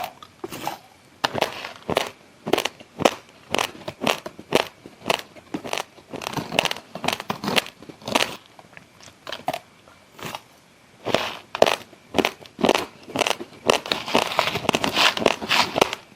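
Close-miked chewing of raw, uncooked basmati rice grains: hard, irregular crunching and crackling as the dry grains are bitten and crushed between the teeth, a few crunches a second, denser near the end.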